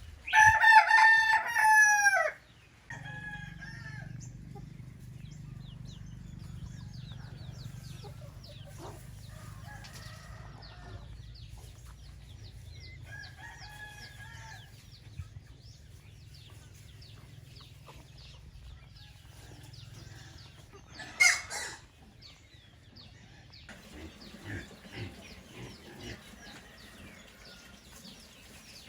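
Rooster crowing loudly right at the start, then fainter crows from roosters farther off several times, and a short loud call a little after the middle. Clucking follows near the end, over many short high chirps and a steady low hum.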